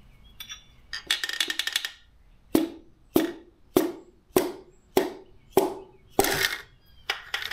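A piston is tapped down through a ring compressor into a cylinder bore of a Ford 351 Windsor small-block with a hammer handle. A quick run of clicks about a second in is followed by about seven even knocks, roughly every 0.6 s, each with a short ring, and a denser clatter near the end as the piston goes into the bore.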